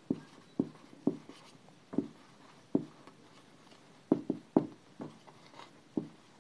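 Marker pen writing on a whiteboard: about a dozen short, irregular strokes as letters are written out, a quick run of them about four seconds in.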